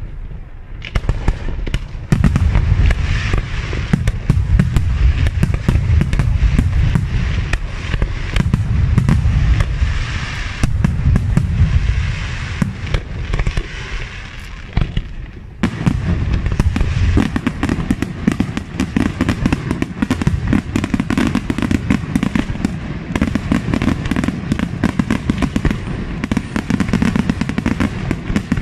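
Aerial fireworks shells bursting one after another, dense bangs and crackling. About halfway through, a sudden, denser barrage of bangs and crackle takes over.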